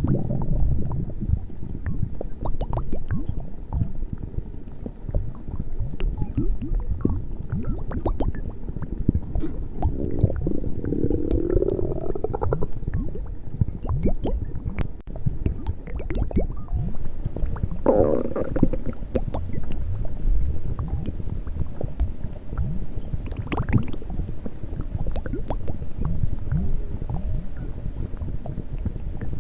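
A woman's stomach growling and gurgling without pause, as many short gurgles. About ten seconds in a longer rumble rises in pitch, and a shorter one comes near eighteen seconds.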